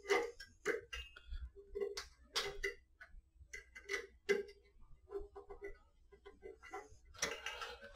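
Small metal parts clicking and tapping as a hex key is worked in the set screws of a steel photo-eye mounting bracket on a rod: irregular light clicks, two or three a second.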